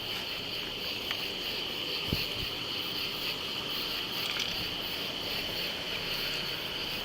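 Steady outdoor background of a constant high-pitched insect chorus, like crickets or katydids, over a low hiss, with a faint knock about two seconds in.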